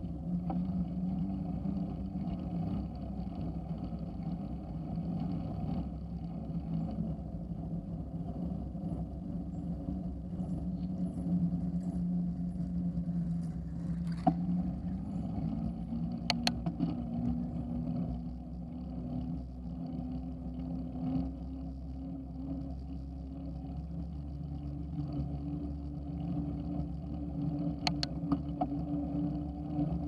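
Bicycle rolling on a paved trail, heard through a handlebar-mounted camera: a steady rolling hum of tyres and frame that shifts higher in pitch about halfway through, with a few sharp clicks.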